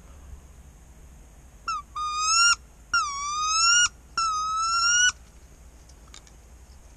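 A dog whining: a short squeak, then three loud, high, drawn-out whines, each rising slightly in pitch.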